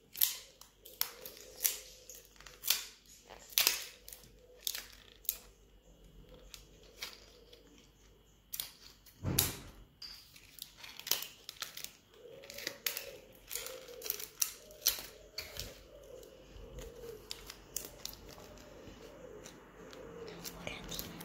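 Scissors snipping through plastic drinking straws one after another, a sharp snip roughly every second, with one louder cut about halfway through.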